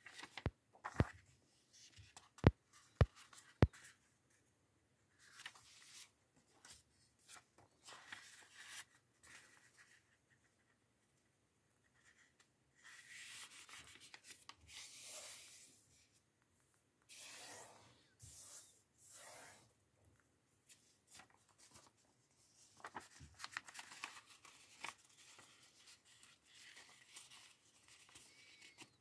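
A square sheet of origami paper being handled and folded on a tabletop: crinkling and rustling in intermittent bursts, with fingers rubbing along the folds to press creases. A few sharp clicks come in the first few seconds.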